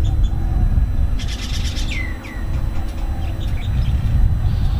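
A bird calling: a quick high chatter about a second in, then two short down-slurred whistles, over a steady low rumble.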